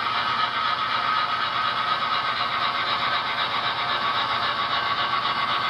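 HO scale model train, a cab-forward steam locomotive pulling freight cars, running steadily along the track, with a constant whine under the running noise.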